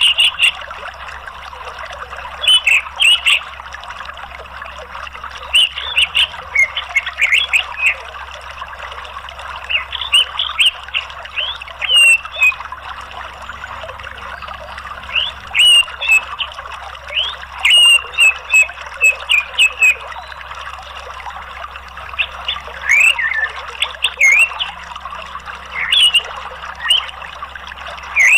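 Orange-headed thrush calling in clusters of short, high chirps and trills a second or two apart, over the steady rush of flowing water.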